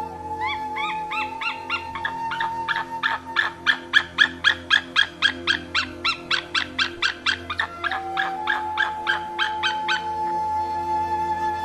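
White-tailed eagle calling: a few rising yelps, then a long fast series of short yelping notes, about four a second, that stops shortly before the end. Soft background music runs underneath.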